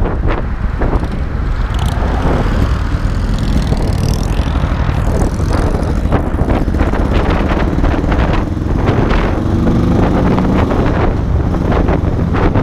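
2022 Indian Chief Darkhorse's air-cooled Thunderstroke 116 V-twin running at freeway cruising speed under heavy wind buffeting on the microphone.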